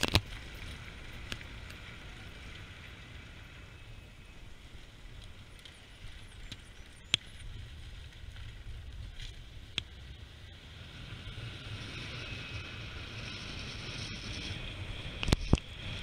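Car driving: steady low road and engine rumble with a faint hiss of wind. There are a few sharp clicks, and two loud knocks near the end.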